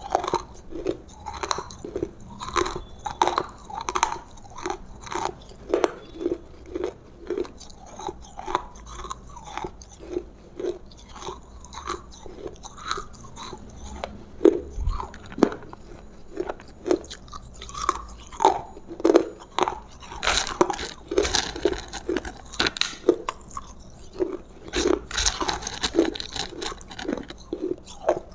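Close-miked chewing of roasted food, a steady rhythm of about two chews a second, with crunchier stretches in the second half.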